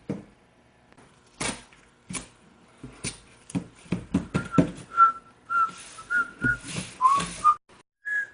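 A person whistling a short tune in separate notes, starting a little before halfway through, over a series of sharp knocks and scrapes from handling.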